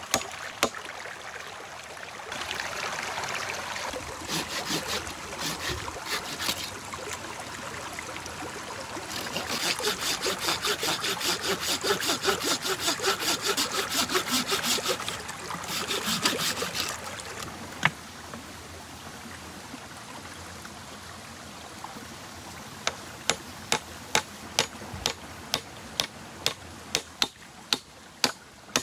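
Wood being worked by hand: a stretch of fast, even hand-saw strokes, then a run of sharp knocks about two a second near the end.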